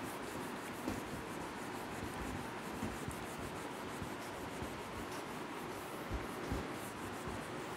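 A handheld duster rubbing across a whiteboard, wiping it clean, with a few soft low thumps.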